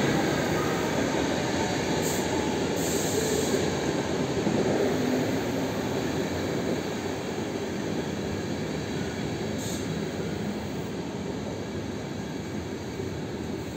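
Passenger coaches of an arriving express train, hauled by a Siemens Vectron electric locomotive, rolling past while slowing into the station: a steady rumble and rattle of wheels on the rails that gradually gets quieter.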